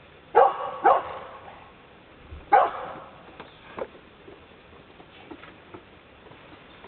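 Rottweiler barking three loud times: two barks in quick succession, then a third about a second and a half later.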